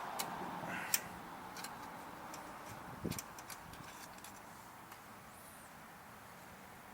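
A scatter of small, irregular clicks and ticks, with a soft knock about three seconds in: a dipstick being threaded into and out of the oil fill tube of a Tecumseh snowblower engine to check the oil level.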